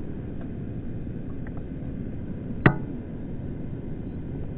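Steady low outdoor rumble, with one sharp click about two and a half seconds in.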